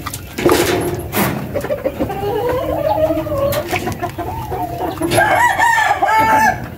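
Rooster crowing: one long crow that rises and then falls, followed near the end by a choppier crow of several short notes. Two sharp knocks sound in the first second or so.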